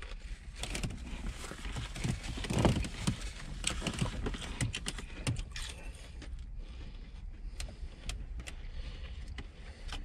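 Small plastic clicks and crinkles from a lidded plastic dressing cup being handled and pried open, with eating sounds, over a steady low rumble. The clicks thin out over the second half.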